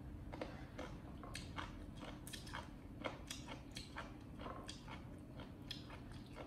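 Monkeys biting and chewing food, heard as a quick, irregular run of crisp clicks and crunches over a faint low hum.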